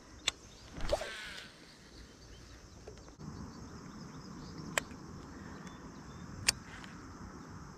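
Quiet outdoor background with three sharp, isolated clicks: one just after the start, one near the middle and one near the end. A short rushing burst comes about a second in.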